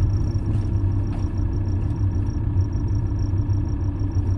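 Campervan engine running with a steady low drone.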